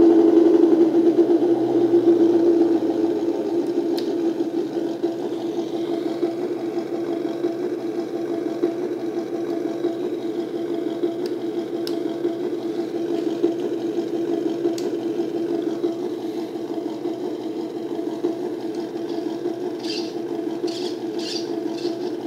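Sound module of a 1/14-scale RC Scania truck playing a steady diesel idle through its small speaker, louder for the first few seconds and then settling. A few faint clicks, and a quick run of four short hissing bursts near the end.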